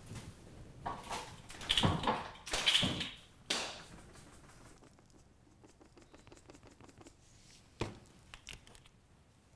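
Rustling and scraping noises, loudest in the first few seconds, followed by a few light ticks and a single sharp knock about eight seconds in.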